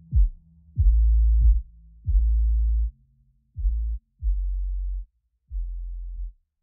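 Electronic music with deep sub-bass notes, each struck with a kick drum, getting quieter toward the end.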